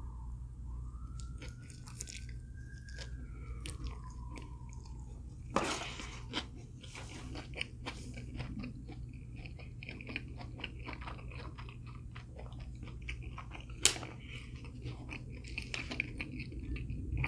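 Close-miked chewing and crunching of crispy fried food, a string of small crunches with a bigger crunch about a third of the way through and a sharp crack about two-thirds through. A steady low hum sits underneath.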